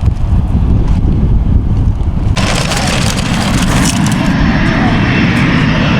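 Boeing 747 jet engines running with a loud, steady roar, heard over low wind rumble on the microphone. The roar comes in abruptly about two and a half seconds in, and a thin high whine joins it later.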